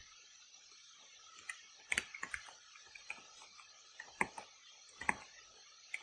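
Scattered clicks of a computer keyboard and mouse in use: a few short, separate taps, the clearest about two, four and five seconds in, over faint room hiss.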